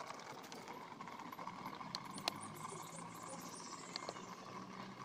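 Pieces of marinated hilsa being laid by hand into a small steel tiffin box: a few faint taps and clicks of fingers and fish on the steel, the sharpest a little past two seconds in and another near four seconds, over a faint steady hum.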